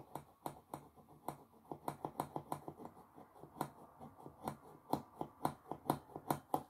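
A pump dispenser of nail liquid being pressed over and over to draw the liquid up, giving a fast run of small plastic clicks, about four a second.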